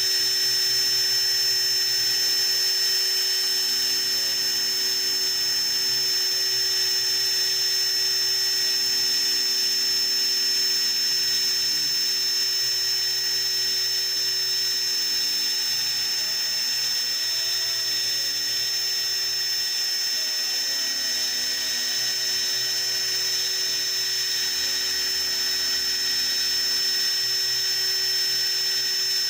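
CNC machine cutting: its spindle gives a steady high whine while a lower motor hum comes and goes every few seconds as it works through the finishing cut.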